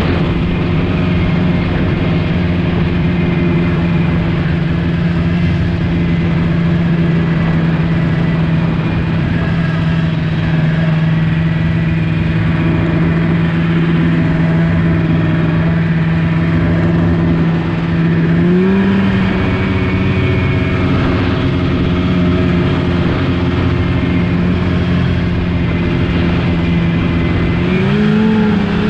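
Snowmobile engine running at a steady cruising speed, heard from on board the sled. Its pitch rises twice, about two-thirds of the way in and again near the end, as it revs up.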